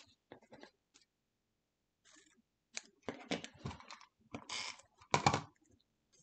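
Hands handling cut paper and cardstock pieces on a cutting mat: paper rustling and sliding, with light clicks and taps as small craft tools are moved on the table. It is sparse at first and busier from about three seconds in until shortly before the end.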